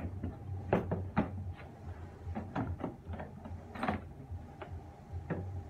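Hard-plastic clicks and knocks of a DeWalt tool case being handled and its latches unclipped to open it: about nine sharp clacks, irregularly spaced.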